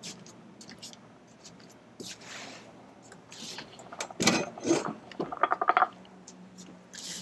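Handling and movement noises: scattered rustling and scraping, a loud knock about four seconds in, then a quick rattling run of clicks.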